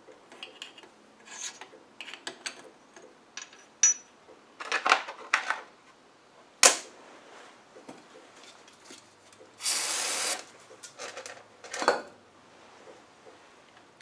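Metal gearbox parts and tools being handled during an LT77S gearbox rebuild: scattered clicks, knocks and light scrapes, with one sharp click about halfway through and a short hissing rasp a few seconds later.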